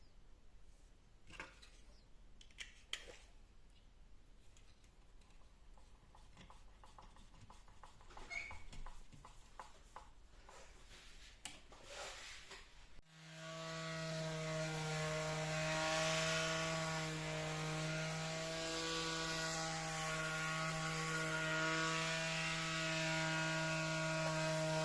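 A few faint clicks and knocks, then about halfway through the motor of a homemade bandsaw mill starts abruptly. Its steady hum builds over a couple of seconds and then holds.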